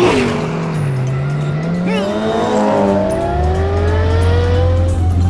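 Cartoon race car engine sound effects revving up: the engine pitch dips briefly after a sudden start, then rises steadily for about four seconds, with more than one engine at different pitches. Background music plays underneath.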